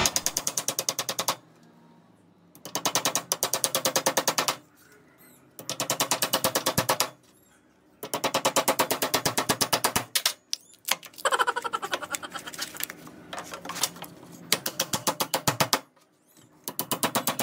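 Hammer driving nails into a small block of soft wood, in several bursts of rapid taps with short pauses between.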